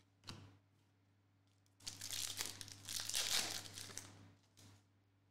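Foil trading-card pack wrapper crinkling for about two seconds in the middle, with a faint click just before it.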